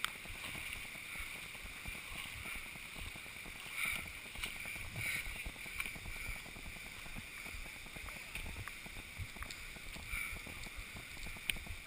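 Faint, muffled water and wind noise on a waterproof action camera riding low on a river, with a few short splashy sounds here and there.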